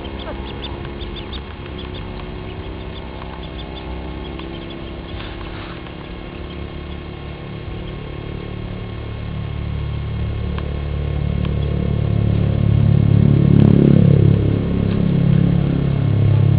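Ducklings peeping faintly in short high calls over a low engine hum, which grows much louder through the second half and becomes the loudest sound.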